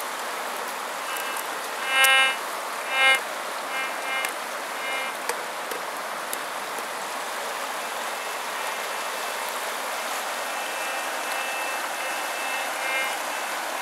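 White's Goldmaster metal detector giving short pitched beeps as its coil sweeps over rock, the two loudest about two and three seconds in, with a longer fainter tone near the end. Under it a steady rush of river water.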